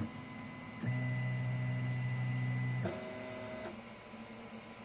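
Monoprice Maker Select Plus 3D printer's stepper motors whining through a series of moves in steady, pitched hums. A move ends at the start, a second runs for about two seconds from about a second in, and a shorter, higher-pitched one follows around three seconds before the machine goes quiet.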